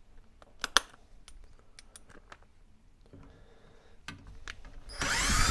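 Light metallic clicks and clinks as a Torx bit and socket are handled and fitted, then a cordless drill-driver whirs loudly for about a second near the end, driving out a Torx mounting bolt on the heater's bracket.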